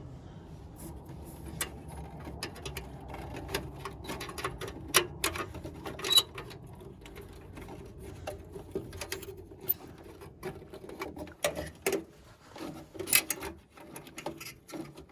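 Irregular clicks and light metallic clatter of hand tools and furnace parts being handled, over a low steady hum.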